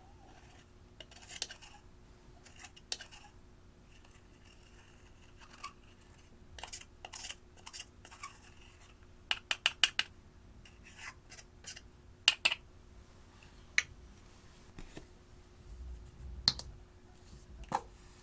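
Slime being worked by hand, giving scattered crisp clicks and pops, including a quick run of four about halfway through.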